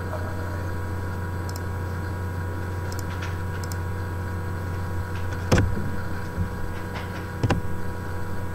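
Steady low hum with a buzz over it, broken by a few clicks; the loudest click comes about five and a half seconds in, another about two seconds later.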